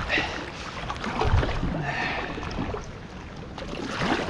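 Kayak paddle strokes, the blade splashing and swishing through choppy water every couple of seconds, with a low thump about a second in.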